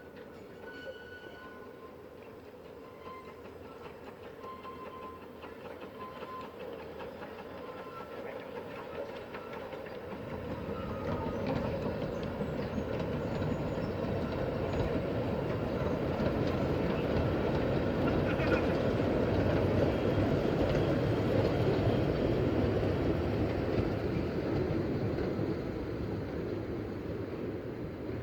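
Narrow-gauge train hauled by a Hunslet Wren-class steam locomotive passing close by. The sound builds from about ten seconds in, is loudest a little past the middle, and fades away near the end.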